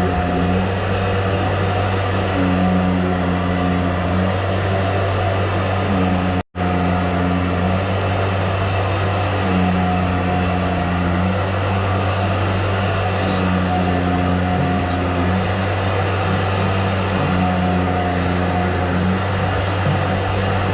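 Electric motor running with a steady low hum, overlaid by a higher tone that comes and goes in a regular cycle of about two seconds. The sound cuts out for an instant about a third of the way through.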